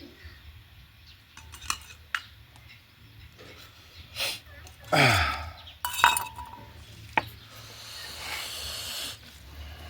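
Tableware being handled for a meal: spoon and plate clinks and scrapes with a few sharp clicks, and a brief sound falling in pitch about halfway through.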